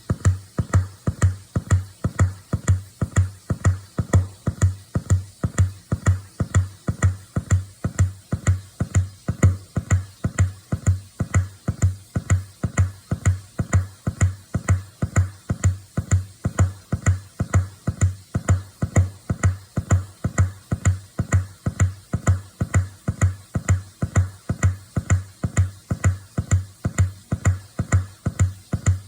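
Original Apple HomePod smart speaker giving out a steady train of low pops, about two a second, all alike: the popping fault.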